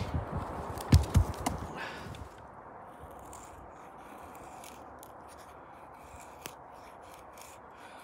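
Two sharp knocks about a second in, then a Spyderco Dragonfly 2 folding knife whittling a wooden stick: a run of short, faint scraping strokes as the blade shaves the wood.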